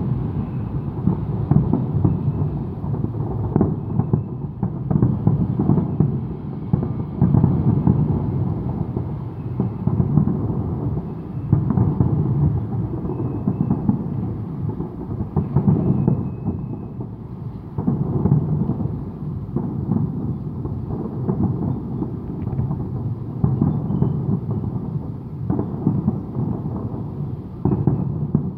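Aerial fireworks shells bursting one after another in a continuous barrage, heard from a distance as many overlapping booms that merge into a rolling, thunder-like rumble.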